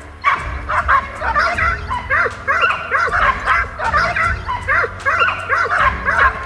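A pack of Segugio Italiano hounds (short-haired black-and-tan) giving tongue together on a hare's scent: many overlapping yelping bays in quick succession, several a second.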